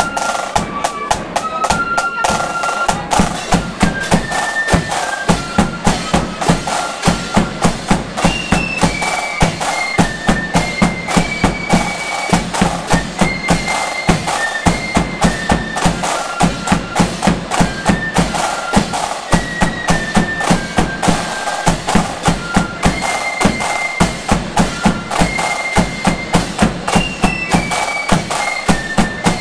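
A marching flute band playing a tune: flutes carry a high stepping melody over snare drums, a bass drum and clashing cymbals keeping a steady march beat.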